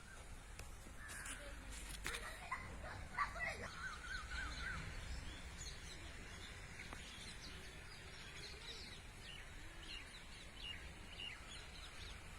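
Birds calling and chirping: many short, high calls, busiest in the first few seconds, over a low background rumble.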